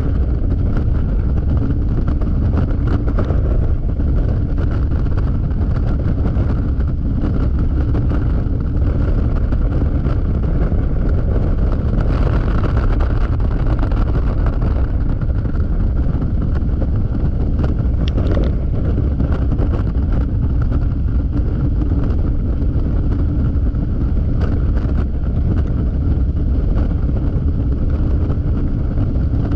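Steady rush of wind on the microphone over a Yamaha XMAX scooter's single-cylinder engine and tyres, running at freeway speed.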